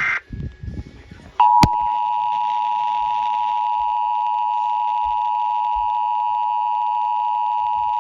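Emergency Alert System test: the tail of a digital header burst ends at the start, then about a second and a half in the EAS attention signal begins, a loud, steady two-tone sound of about 853 and 960 Hz held without a break.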